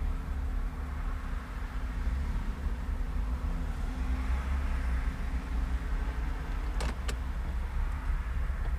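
Porsche flat-six engine running at a low idle as the car creeps forward in a queue, heard from inside the cabin as a steady low rumble. Two sharp clicks come close together about seven seconds in.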